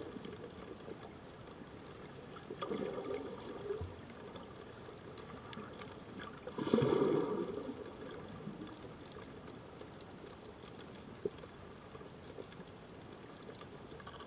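Underwater sound of a scuba diver's exhaled bubbles from the regulator: a bubbling burst about three seconds in and a louder one near seven seconds, over a steady low hiss with a few faint clicks.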